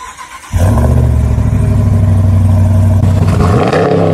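Pickup truck engine running steadily at a low pitch, then revved once near the end, the pitch rising and falling back.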